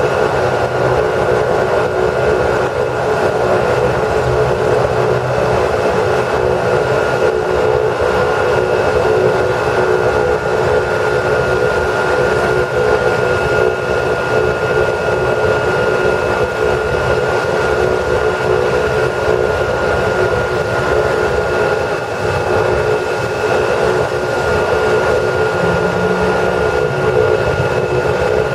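AugustaWestland AW139 helicopter running on the ground with its twin turboshaft engines and rotors turning, a loud, steady rotor and engine noise carrying a high, constant turbine whine.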